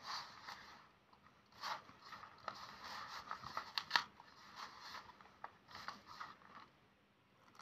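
Hands squeezing and kneading stiff, crumbly maida-and-ghee mathri dough in a steel bowl: faint, irregular crunching and scraping.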